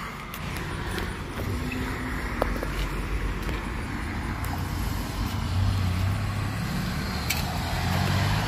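Street traffic: a motor vehicle passing on the road, its low engine hum growing louder in the second half, over a steady outdoor haze.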